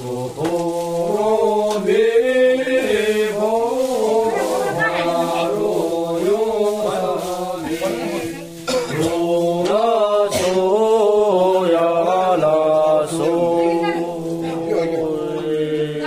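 Melodic chanting by voices, a tune moving over a steady held low drone note, with a brief break about halfway through.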